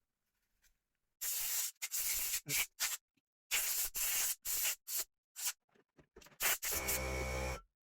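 Short bursts of blown air hissing as dust is cleared out of a Nokia N900 phone's housing, about eight blasts with gaps between them. The last, longer blast near the end carries a steady motor hum.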